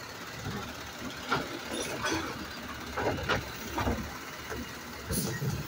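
Automated side-loading garbage truck's arm lifting and tipping a wheeled trash cart into the hopper: a string of clunks and knocks as the cart shakes out, over the truck's low running rumble.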